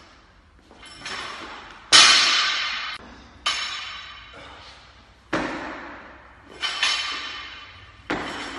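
Loaded barbell with bumper plates clanking during Olympic cleans: about six sharp metallic clangs, each ringing and dying away over about a second in a large echoing room, the loudest about two seconds in.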